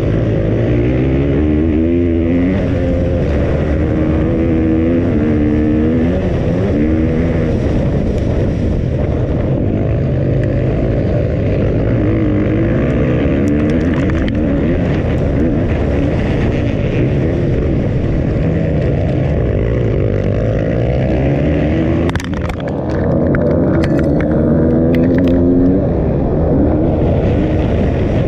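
2020 KTM 250 four-stroke motocross bike's single-cylinder engine revving up and falling off again and again as the rider accelerates, shifts and rolls off around the track. A few short sharp knocks come about two-thirds of the way through.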